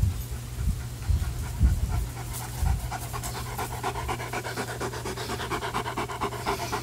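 German Shepherd panting quickly and evenly at close range with a rubber Jolly Ball in its mouth. The panting starts about three seconds in, after a few low thumps.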